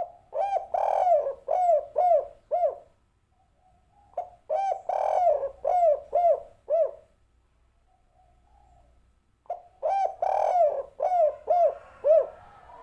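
Spotted dove cooing in three phrases, each a quick run of six or seven arched coos lasting about three seconds, with short pauses between them.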